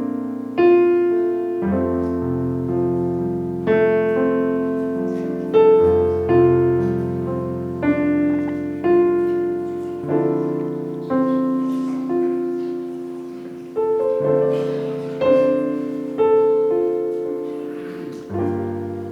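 Solo piano playing a slow, quiet accompaniment, one chord or note struck about every second and left to ring and fade.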